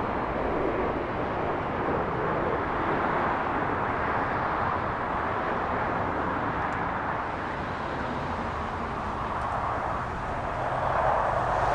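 Steady jet engine noise from airliners at the airport, swelling slightly near the end.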